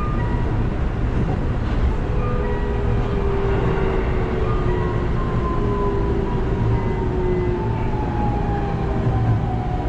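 Electric commuter train running on rails, heard from the driver's cab: a steady rumble of wheels on track, with a motor whine that slowly falls in pitch from about four seconds in as the train slows into a station.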